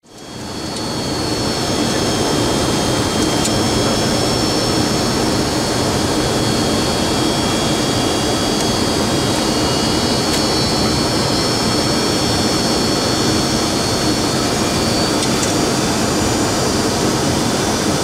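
Steady flight-deck noise of a Boeing 737-200 in descent: the drone of its Pratt & Whitney JT8D-17A turbofans and the rush of air around the cockpit, with several thin, steady high-pitched whines on top. It fades in over the first second or two, then holds level.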